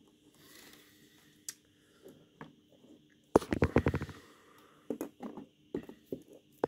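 Handling noise: a quick rattling run of sharp clicks about three seconds in, then a few scattered single clicks near the end.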